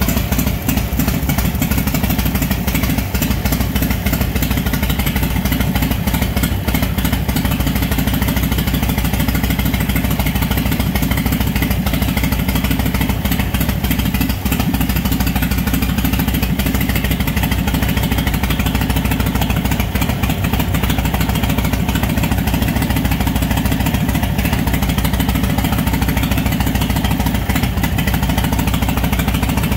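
Flathead Harley-Davidson motorcycle engine running at a steady speed, with no revving.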